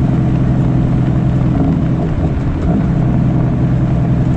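Caterpillar C13 diesel engine of a Kenworth W900B dump truck running steadily under way; about two seconds in its pitch dips and wavers briefly, then steadies again.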